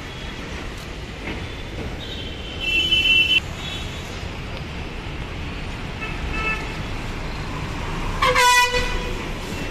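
Vehicle horns honking over the low rumble of bus engines: a short high-pitched honk about three seconds in, a fainter one around six seconds, and a louder, fuller blast near the end as a bus passes close by.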